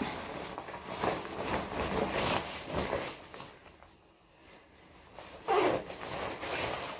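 A jacket being put on: fabric rustling and a zipper being pulled, then a brief pause. A short, louder sound breaks in about two thirds of the way through.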